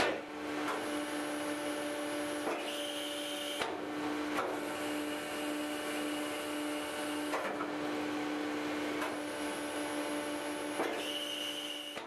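Refuse baler machinery running: a steady hum with a high whine that comes and goes in stretches, and a few sharp clicks and knocks about every one to three seconds.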